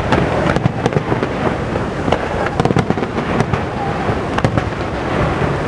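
Aerial fireworks shells bursting in an irregular run of sharp bangs and crackles over a steady rushing background.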